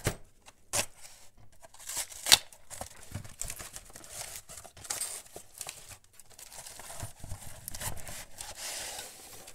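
Cardboard shipping box being torn open by hand: cardboard flaps and packing tape ripping and rustling, with a few sharp snaps, the loudest about two seconds in.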